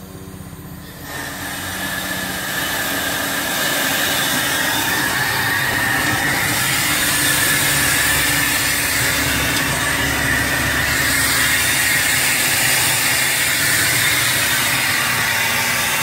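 Steam blower ring in a fire-tube boiler's stack turned on: a loud, steady rush of steam hiss that starts about a second in and builds over the next few seconds, forcing a strong draft through the wood fire in the firebox.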